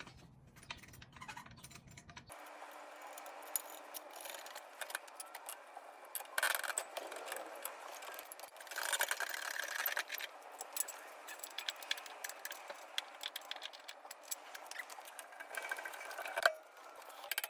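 Irregular clinking, rattling and scraping of small metal tools and parts being handled, with louder stretches about six and nine seconds in.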